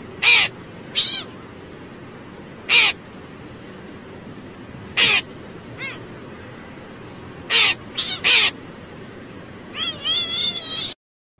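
A domestic cat's short, high meows and chirps, about nine of them at uneven intervals, with a wavering run of calls near the end, over a steady background hiss.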